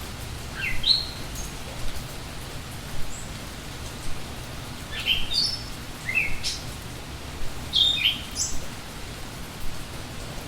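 Steady rain falling, with a bird calling over it in short chirps that sweep upward in pitch. The chirps come in four groups: about a second in, twice around the middle, and near the end.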